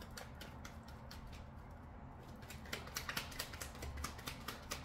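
A deck of cards being shuffled by hand: a run of quick, light clicks as the cards slap together, growing denser and louder a little past halfway.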